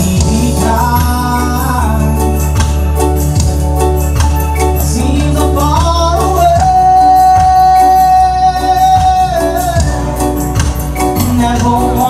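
Live reggae band playing, with a male singer and keyboards over bass and drums; one long note is held through the middle.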